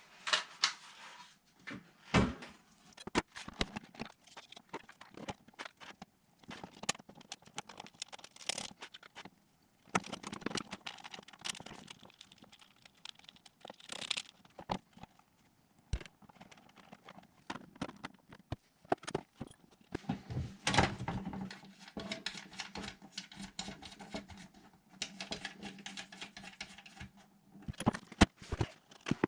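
No-input feedback sounds from a DigiTech RP-1 multi-effects processor: irregular glitchy clicks, crackles and short noisy bursts, with faint steady low tones underneath in the second half.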